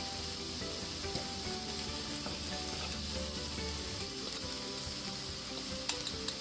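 Diced vegetables (onion, peppers, corn, spinach) sizzling steadily in oil in a skillet, with a couple of small clicks near the end.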